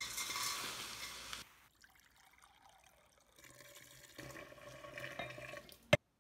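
Water poured from a measuring cup into a glass jar of nuruk, splashing in two pours: a louder one lasting about a second and a half, then a longer one after a short pause. A single sharp click near the end.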